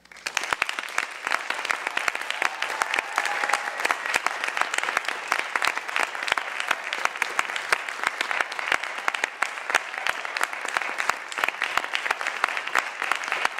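Audience applauding: dense clapping that breaks out suddenly and carries on steadily.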